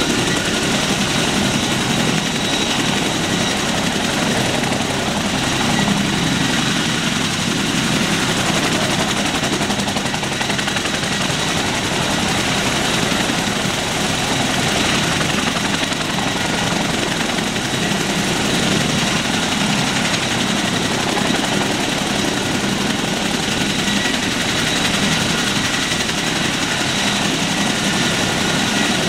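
CH-47 Chinook tandem-rotor helicopter running on the ground, rotors turning: a loud, steady rotor noise with a high turbine whine over it.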